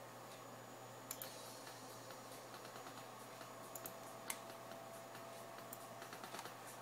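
Faint scattered clicks of a computer mouse and keyboard over a steady low hum.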